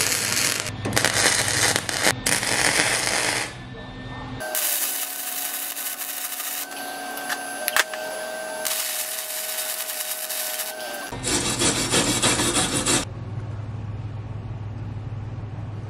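MIG welder arcing on quarter-inch steel flat bar in crackling bursts that start and stop, as the hinges and clasp are welded to the door frame. A steadier hiss fills the middle, and near the end the crackling gives way to a low hum.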